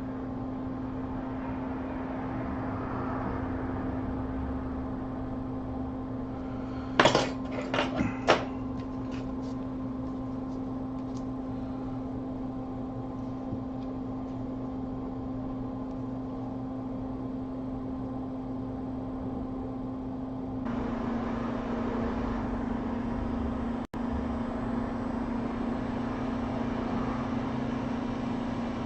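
Hot-air rework station blowing with a steady hum during reflow of an iPhone touch IC chip. About 21 seconds in, the hum drops slightly in pitch and the airflow gets louder. A few sharp clicks sound about 7 to 8 seconds in.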